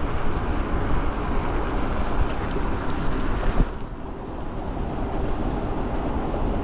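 Wind buffeting the microphone while riding an e-bike, a dense rumble with a hiss above it. A little over halfway through the hiss falls away and it gets quieter.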